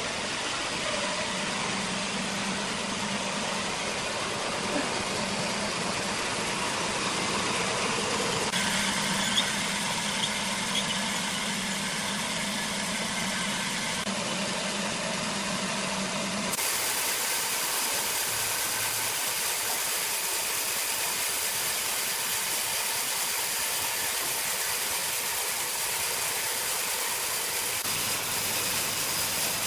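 Steady, loud running noise of sawmill machinery, with no distinct strokes. Its character changes abruptly several times, as one machine's sound gives way to another's.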